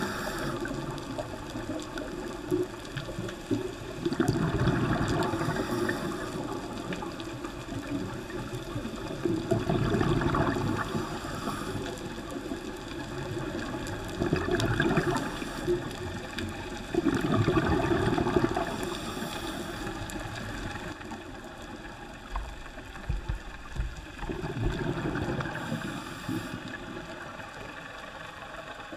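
Scuba diver's regulator breathing underwater: bursts of bubbling exhalation every few seconds over a constant underwater hiss.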